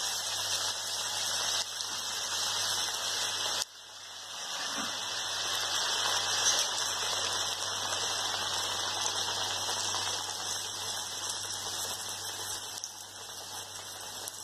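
Batter-coated papadam (pappada vada) deep-frying in hot oil: steady sizzling and crackling. It drops away sharply about four seconds in, then builds back up.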